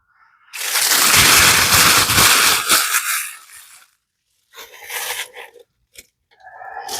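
Packaging wrap crinkling and tearing as a statue piece is unwrapped: one long burst of about three seconds, then a shorter one a second later.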